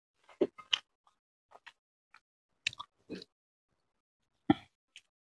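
Close-up mouth sounds of a man chewing a handful of rice and chicken curry: wet, irregular smacks and clicks, the loudest about half a second in and again near the end.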